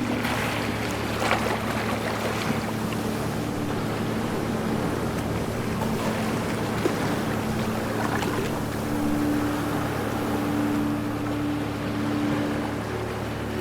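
Ocean waves washing and surging in a steady rush, with a few brief splashes. Under it runs a steady low hum like a boat engine.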